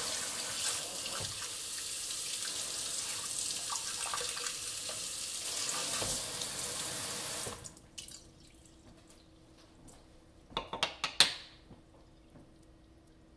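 Kitchen faucet spraying water onto a diamond sharpening plate held over a stainless steel sink, shut off about two-thirds of the way through. A few seconds later there is a quick cluster of sharp knocks, the loudest sound here.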